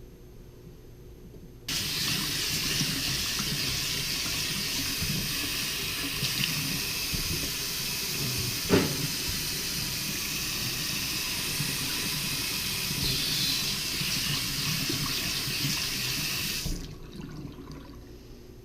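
Water from a freshly rebuilt Delta single-handle kitchen faucet running into the sink. It turns on abruptly and runs steadily for about fifteen seconds, with one short knock about halfway through, then shuts off near the end.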